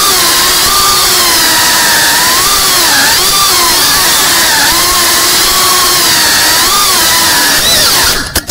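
FPV quadcopter's brushless motors and propellers whining, the pitch rising and falling with throttle as the drone manoeuvres. The sound cuts out suddenly near the end with a few knocks.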